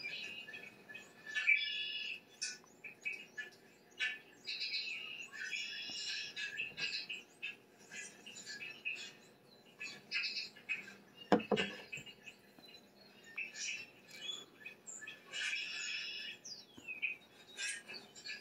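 Small birds chirping and trilling in quick, overlapping calls, played through a television's speakers from a bird-feeder video. A single sharp knock stands out a little past the middle.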